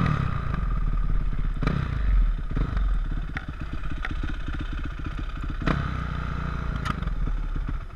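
Yamaha YZ450F's single-cylinder four-stroke engine idling with a low, even pulse, with a few sharp knocks over it; the engine stops right at the end.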